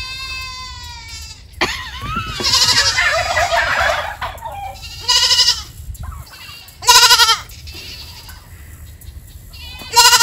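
A goat bleating loudly and repeatedly, about five calls, one long and hoarse about two seconds in. These are the separation calls of a goat kept apart from its companion goat.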